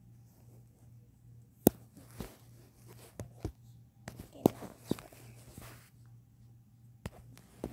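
Handling noise: soft rustling broken by a scattering of sharp taps and clicks, about eight in all, the loudest about a second and a half in, as a hand brushes and knocks the phone and things around it.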